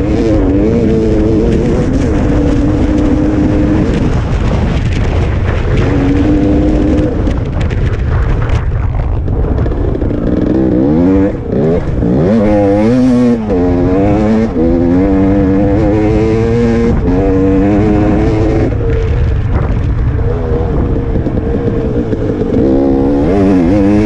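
Dirt bike engine running hard, its pitch rising and falling as the rider works the throttle and shifts gears. Around the middle it revs up and drops back several times in quick succession.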